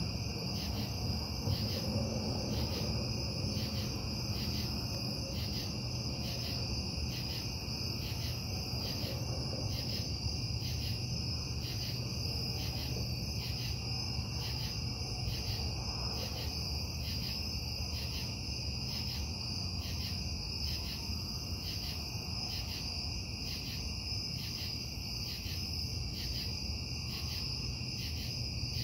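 Steady low industrial rumble and hum from the Casting Solutions plant, blamed as a noise-ordinance violation, with night insects chirping over it in an even rhythm of about one and a half chirps a second.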